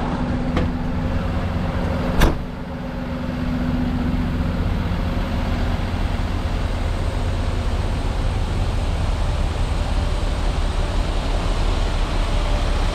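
Tow truck's engine running steadily with a low hum. There is a single sharp knock about two seconds in.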